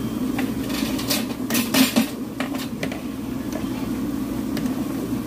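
A freshly added batch of vegetables deep-frying in a large wok of hot oil, bubbling and sizzling steadily. A cluster of sharp clicks and clatters comes between about one and two seconds in, with a few single clicks after.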